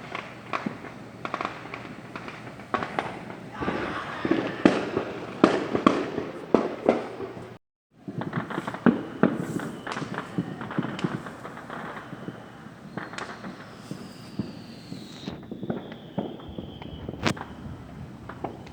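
Many fireworks and firecrackers going off: a dense run of sharp bangs and crackles, loudest a few seconds in, broken by a moment of dead silence near the middle. Scattered bangs follow, then a long falling whistle and one sharp crack near the end.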